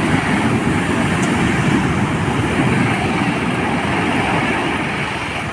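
Heavy surf breaking and washing up a sandy beach: a loud, steady rush of water that eases slightly toward the end.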